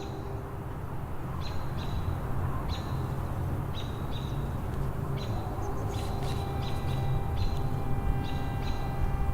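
Small birds chirping, short high calls repeating once or twice a second, over a steady low rumble.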